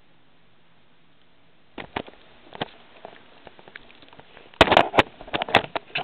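Handling noise on the camera's own microphone: scattered knocks and scrapes as the camera is moved, with a louder cluster of knocks about two-thirds of the way through as it is set down on a table.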